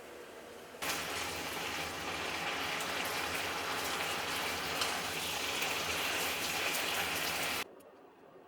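Steady rush of falling water that starts suddenly about a second in and cuts off abruptly near the end.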